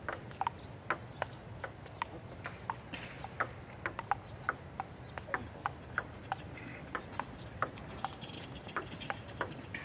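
Table tennis balls clicking off paddles and tabletops in rallies at two tables at once. The sound is a continuous run of sharp, slightly ringing pocks, about two to three a second, in an uneven overlapping rhythm.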